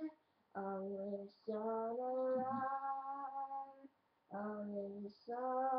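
A female voice singing unaccompanied in four short phrases of long, held notes, with brief silences between them.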